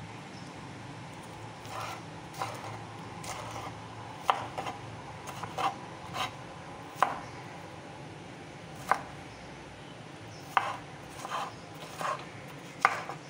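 Kitchen knife dicing a tomato on a wooden cutting board: irregular knocks of the blade striking the board, beginning about a second and a half in.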